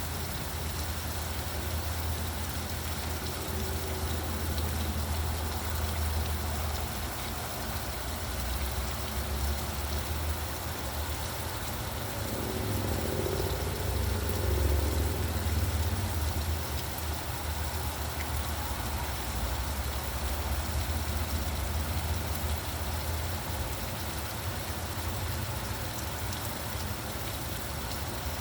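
Steady rain falling, under a low, continuous rumble of road traffic. The rumble swells about halfway through as a vehicle passes.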